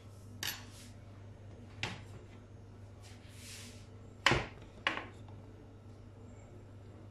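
A perforated baking tray knocked and set down on a wooden worktop: a few sharp clanks, the loudest about four seconds in and another half a second later, with a short rustle just before.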